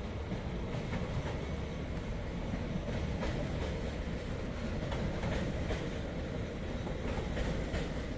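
TER regional passenger train rolling slowly along the station tracks: a steady low rumble, with irregular clicks and clacks from its wheels on the rails, a few bunched together near the middle and near the end.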